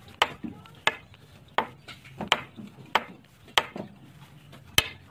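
A series of sharp, evenly spaced knocks, about three every two seconds, with a few fainter ones between.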